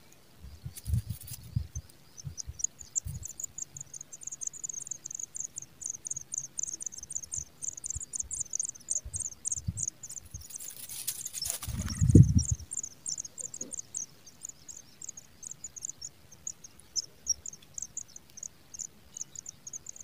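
Pipit nestlings begging with a rapid, high-pitched twittering of thin chirps, thickest as an adult pipit comes to the nest to feed them. Two-thirds of the way through there is a rustle and then a loud low thump, with a few softer low thumps near the start.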